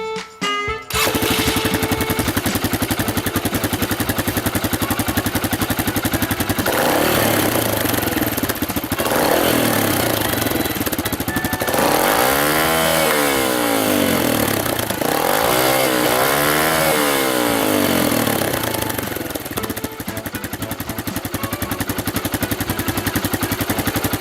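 Yamaha XTZ125's single-cylinder four-stroke engine running through an aftermarket salami-cut silencer: idling, held at higher revs for a couple of seconds, then revved up and down twice before dropping back to idle.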